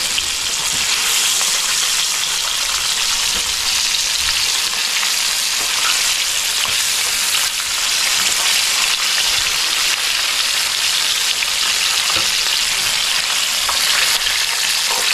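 Battered grouper pieces deep-frying in a pan of hot oil: a steady, loud sizzle, with a few faint clicks.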